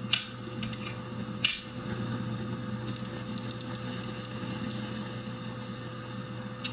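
Handling clicks and light knocks of bidet-attachment parts, the plastic body and a chrome-plated control valve, being turned over in the hands. There are a few sharper clicks in the first second and a half, then a run of lighter ticks.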